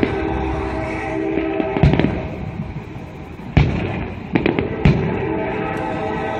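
Aerial fireworks shells bursting with sharp booms, one near two seconds in and a quick run of three from about three and a half seconds on, the first of those the loudest.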